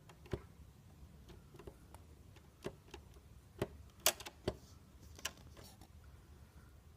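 Irregular sharp clicks and knocks from a Remington typewriter's mechanism being worked by hand, about eight in all, the loudest about four seconds in. The locking mechanism will not lock into place: a bent metal tab hits a nut.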